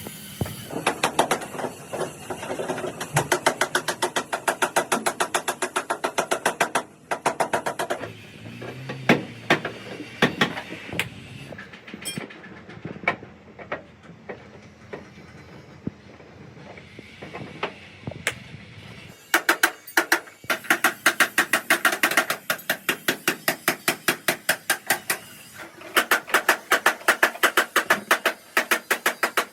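Rapid, regular strikes of a hand tool on metal, about five a second, in two long runs with a stretch of scattered knocks between.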